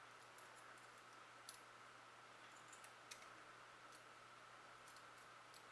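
Near silence broken by a few faint, scattered clicks of small metal lock parts being handled, as the Tubar lock's finger pins are set back into their chambers.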